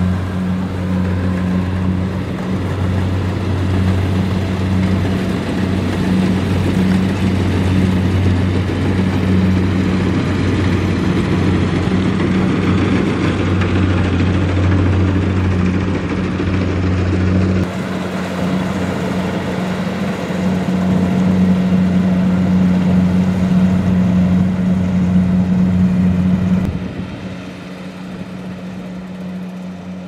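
Kubota DC-70 Plus rice combine harvester running steadily while cutting and threshing: a steady low engine hum under a broad mechanical rush. The sound changes abruptly about 18 seconds in and drops noticeably quieter a few seconds before the end.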